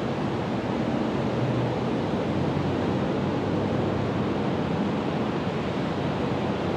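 Steady rushing background noise, even and unbroken, with no distinct calls or other sounds standing out.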